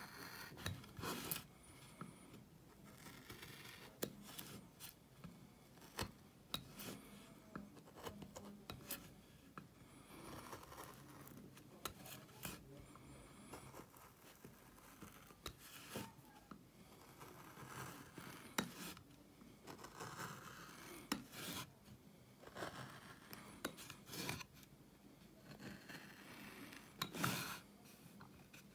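Small hand gouge pared through linden wood: quiet, irregular short scraping cuts with now and then a sharp snick as chips break free, clearing the background around a low-relief design.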